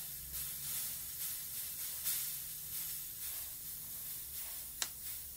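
Compressed air hissing steadily out of a high-pressure PCP hand pump's opened bleed valve, venting the roughly 200 bar (3000 PSI) left in the fill hose so the connector can be taken off safely. A short click sounds near the end.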